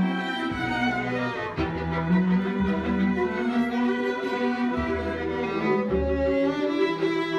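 Chamber string orchestra playing: violins over cellos, with low bass notes coming and going.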